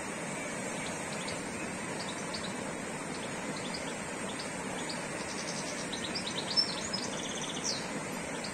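A rocky forest stream rushing steadily. Small birds chirp over it, with scattered short chirps and then a brief run of quick trills and calls about five to eight seconds in.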